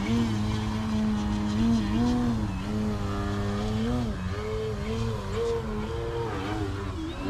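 Electric motor and 16x7 propeller of an Extreme Flight 60-inch Extra NG RC aerobatic plane, a steady drone whose pitch rises and falls several times as the throttle is worked to hold it hanging on the prop.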